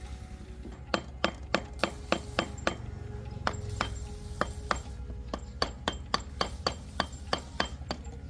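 Hammer tapping on a metal part, about three sharp ringing blows a second, starting about a second in, over background music.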